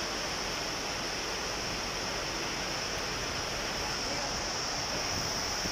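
Heavy rain falling steadily onto wet concrete pavement.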